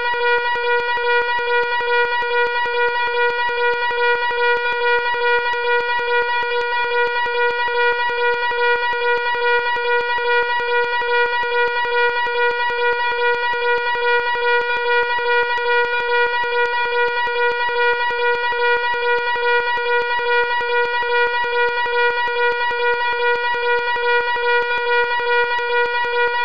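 Fire alarm sounding continuously: a loud, steady buzzing tone that pulses rapidly without change.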